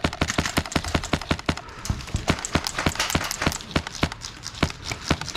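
Airsoft guns firing a rapid string of sharp shots, about five a second.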